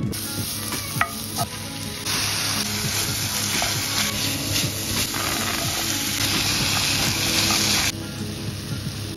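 Vegetables frying in an oiled pan, sizzling, with a utensil stirring through them and scraping the pan. The sizzle grows louder about two seconds in and drops back near the end.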